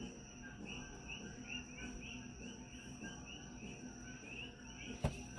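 Faint, even chirping of a cricket, about three chirps a second, with a faint steady high whine under it. A single sharp click near the end is the loudest moment.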